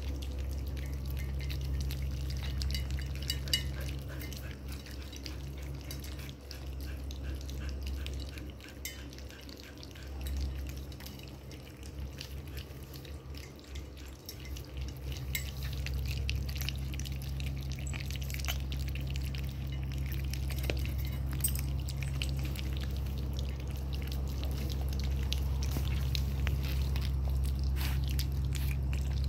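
A litter of puppies lapping and slurping wet mash from a shared stainless-steel bowl: many small wet clicks and smacks, over a steady low hum.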